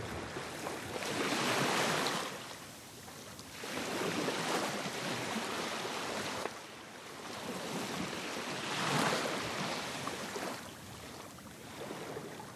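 Sea waves washing on the shore, the noise swelling and fading every few seconds, with some wind.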